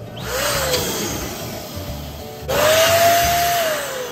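Electric balloon pump blowing air into a latex balloon: a rush of air with a whine. A short burst comes first, then a louder one starts suddenly about two and a half seconds in, its whine holding steady and then falling in pitch near the end.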